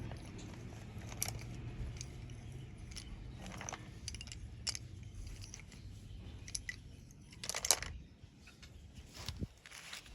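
Slate pencils making scattered sharp clicks and crisp crunches, with a longer, louder crackle about seven and a half seconds in.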